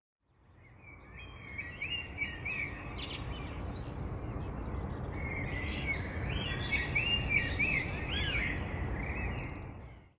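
A dawn-chorus field recording played back as a sample from a Pure Data patch: many birds chirping and singing in short high phrases over a steady low background rumble. It fades in over the first couple of seconds and dies away just before the end.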